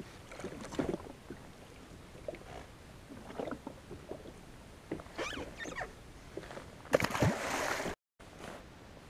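Quiet sloshing of water against a jet ski's hull with small scattered knocks, then a louder rushing burst about seven seconds in that cuts off abruptly.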